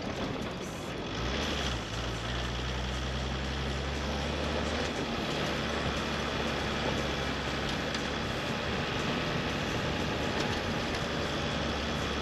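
Toyota Land Cruiser 80 series driving on a narrow, rocky dirt road: a steady low engine hum that sets in about a second in, over constant road and tyre noise.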